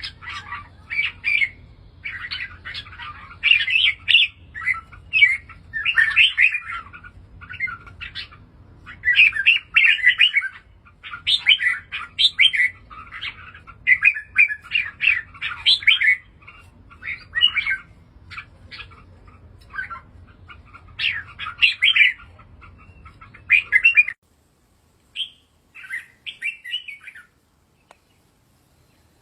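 Red-whiskered bulbul singing: short, bright chirped phrases repeated with brief gaps, over a faint low hum. The hum cuts off about 24 seconds in, after which only a few scattered phrases come, then a short silence near the end.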